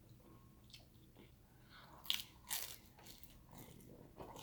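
Crunchy bites into fried food and chewing, with the two loudest crunches just after two seconds in and half a second apart, and softer crunches around them.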